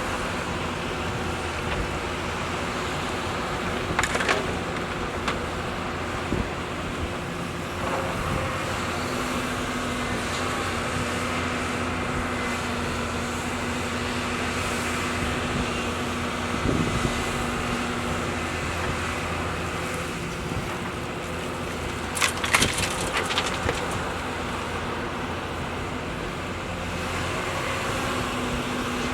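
Hyundai excavator's diesel engine running steadily, with sharp metallic clanks about four seconds in and again a few times around twenty-two seconds in.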